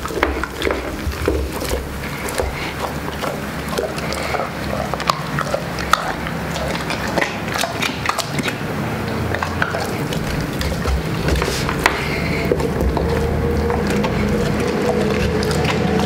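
Large dog eating a whole roast chicken: irregular crunching and cracking of chicken bones between its jaws, with wet chewing and lip-smacking in bouts.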